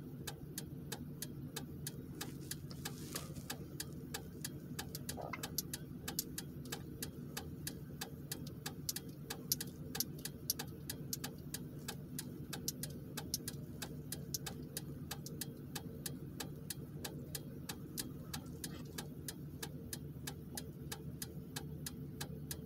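Rapid, even mechanical ticking, about three to four clicks a second, over a low steady hum.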